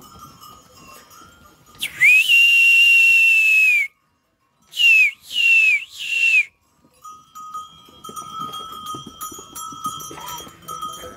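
A shepherd's loud herding whistle: one long, steady high whistle, then three short whistles that each fall in pitch.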